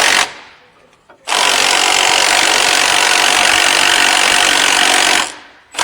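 A power tool is run in loud, steady bursts on the sway bar end-link nut, with no hammering rhythm. A burst stops just after the start, a long run goes for about four seconds, and another begins near the end. The nut is tight.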